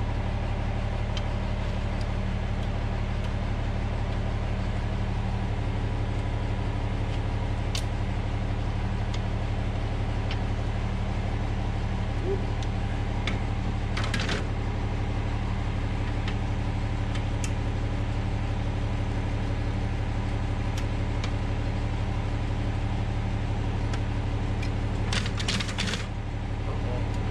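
A small garden tractor's engine idling steadily. A few short metallic clinks and rattles come from the steel attachment frame being fitted, about halfway through and again near the end.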